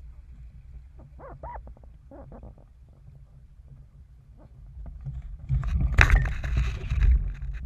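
RS Feva sailing dinghy under way, with a steady low rush of wind and water on the boat-mounted microphone and a few short rising-and-falling whines about a second in. From about five and a half seconds in comes a loud noisy stretch of about two seconds, with a sharp knock near six seconds, as the crew shift across under the boom during a tack.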